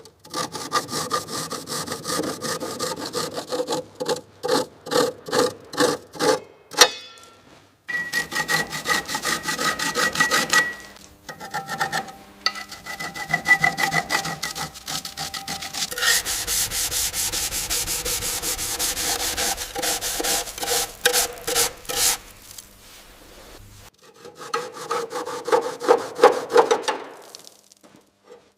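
Rhythmic scraping strokes of hand abrasive work such as sanding or filing, in a series of short clips that cut abruptly from one to the next.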